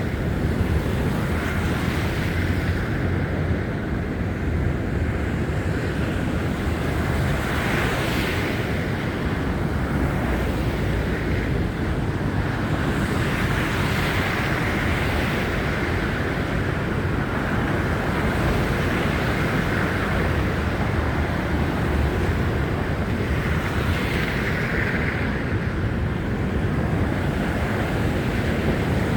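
Wind of a snowstorm buffeting a handheld phone's microphone: a steady low rumble with a rushing hiss that swells and fades every few seconds.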